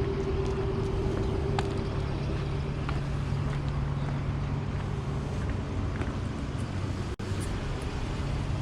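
A motor running steadily with a low humming drone, which cuts out for an instant about seven seconds in.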